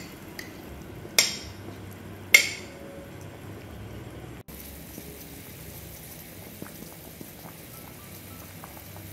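Water at a rolling boil in a clay pot, bubbling steadily, with two sharp clinks of a metal utensil against the dishes about one and two seconds in as pork is added to the pot.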